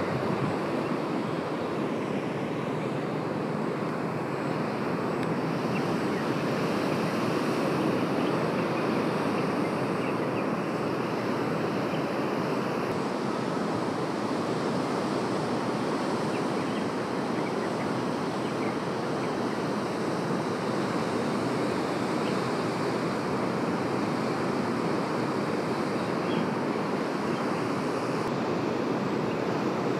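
Sea surf: waves breaking and washing ashore in a steady, unbroken rush.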